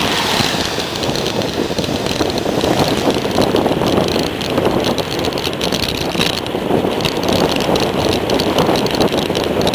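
Wind buffeting a handlebar-mounted camera's microphone on a moving bicycle, mixed with tyre noise and rattles from the mount, played back sped up. A steady, fluctuating rush dotted with small clicks.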